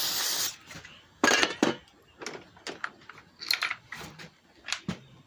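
Aerosol can of carbon intake cleaner spraying with a steady hiss, cutting off about half a second in. Then come about a dozen light, irregular metallic clicks and clinks.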